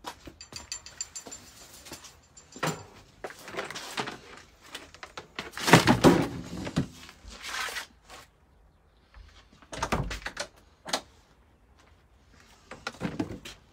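Scattered knocks, clunks and rustling as a heap of plastic, wooden and metal clutter is handled and shifted, with the longest and loudest stretch of rustling and scraping about six seconds in.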